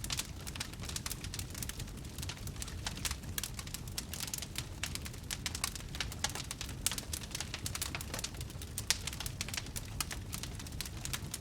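Fire crackling, with dense, irregular pops and snaps over a low steady rumble.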